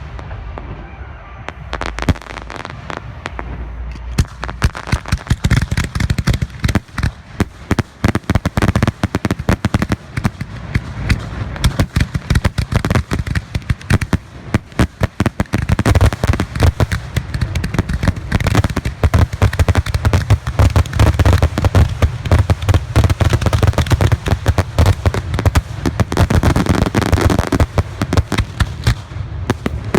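Professional fireworks display: shells and cakes bursting in rapid, overlapping bangs. They thicken a few seconds in and build into a dense barrage with a heavy low rumble over the second half.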